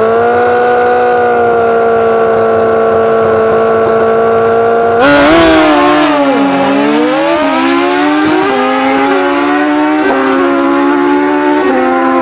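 Two superbike engines held at a steady high rev on the start line for about five seconds, then the launch: a sudden louder blast as the bikes leave, the engine note dropping and climbing again with each of several quick upshifts as they accelerate away down the drag strip.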